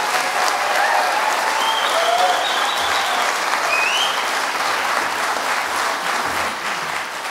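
Audience applauding, with a few brief calls rising over the clapping; the applause eases off near the end.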